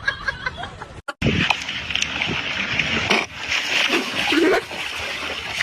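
Water splashing and sloshing, with a few short animal calls, starting about a second in.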